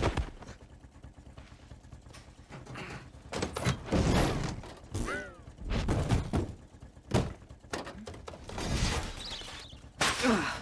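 Heavy luggage trunks and cases flung out of a car, landing one after another on grass with several separate thuds, a few seconds apart.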